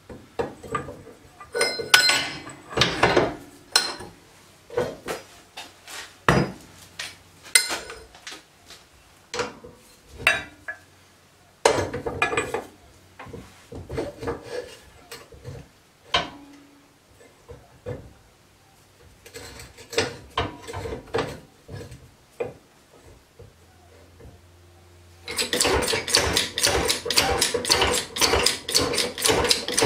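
Steel parts and tools of a homemade press being handled and fitted: scattered metal clinks, knocks and clanks. Near the end, a fast, steady rapid clicking starts up.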